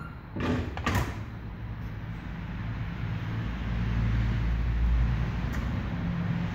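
Wheel-balancing machine during a balance check of a 21x7-10 ATV tyre on its rim: a brief scraping rush about half a second in, then a low mechanical rumble that swells around four to five seconds in and eases off.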